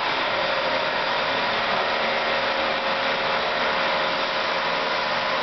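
Acer variable-speed vertical milling machine running at a steady speed with no cut: a constant hiss from the motor and spindle drive with a steady whine.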